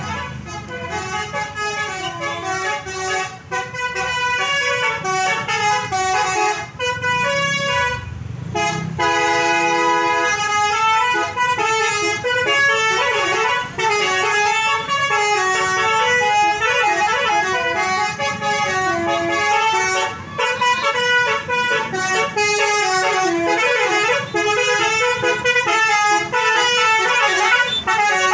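A basuri melodic multi-trumpet air horn on a tour coach plays a tune: a long run of horn notes stepping up and down in pitch, sounded loud and almost without pause.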